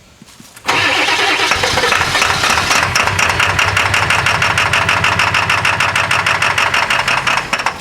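1997 Ford F-250's 7.3L Power Stroke V8 turbo diesel cranking on the starter with an even, rapid beat for about seven seconds without catching, then the starter stops. It is a hard cold start, which the owner puts down to bad injectors.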